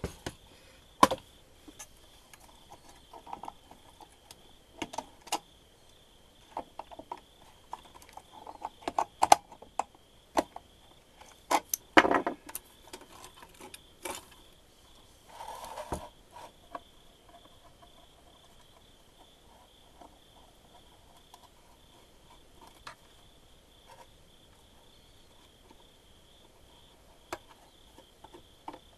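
Irregular clicks, taps and light knocks of a small vintage multimeter and its wires being handled on a bench, with a brief rustle about fifteen seconds in. A steady faint high-pitched trill runs underneath.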